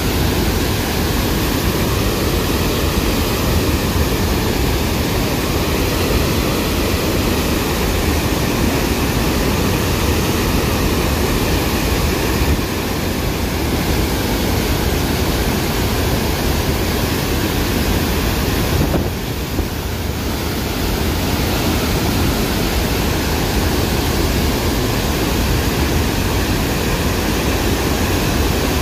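Flood water pouring through a dam's open spillway gates and crashing into the river below: a loud, steady rushing noise. The gates have been lifted to release flood water.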